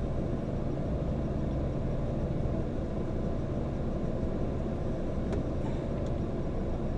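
Steady low rumble of a running motor vehicle, with a constant low hum underneath.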